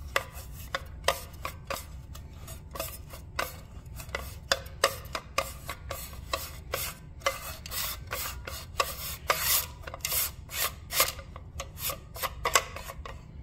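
Recoil starter of a Johnson 5.5 hp outboard turning slowly under hand control as its rewind spring unwinds: a run of irregular clicks and rasping scrapes, several a second, as the tension comes off the spring.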